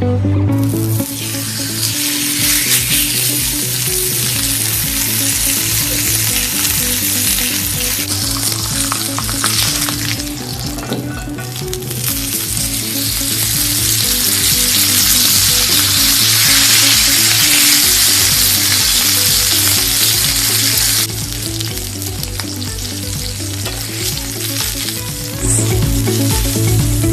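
Food sizzling as it fries in a hot pan, over background music with a steady bass line. The sizzle starts about a second in, dips briefly near the middle, and drops away about three-quarters of the way through, leaving the music.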